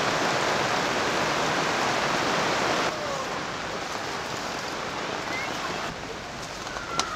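Heavy rain pouring down in a steady hiss. It is loudest for the first three seconds, then drops a little in two sudden steps. Faint chirps sound in the latter half, and there is a single sharp click near the end.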